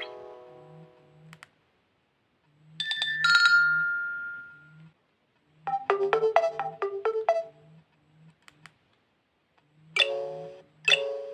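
Nokia Asha 210 phone playing its preset tones in turn: a fading tail of the previous tone, then a short chime, a quick run of plucked notes, and two bell-like strikes near the end. A low pulsing buzz repeats about three times a second underneath.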